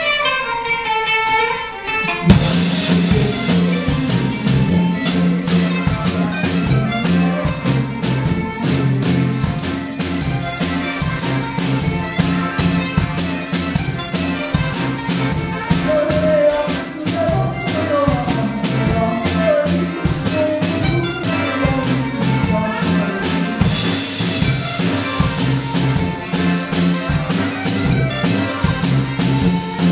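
Live acoustic band playing a Greek rebetiko song. A lone plucked-string line opens, then about two seconds in the full band comes in on a steady beat: sousaphone bass, drum kit, accordion, violin, banjo and clarinet.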